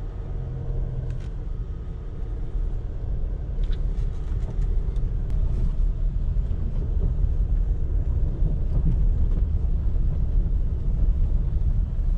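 Land Rover Discovery Sport driving over a rough dirt track, heard from inside the cabin: a steady low rumble of engine and off-road tyres that grows louder over the first few seconds, with a few faint knocks.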